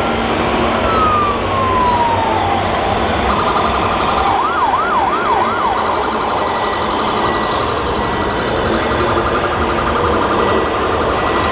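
Electronic police siren from an RC model police car's sound module: a falling tone, then a quick up-and-down yelp repeated about four times, over a steady background din.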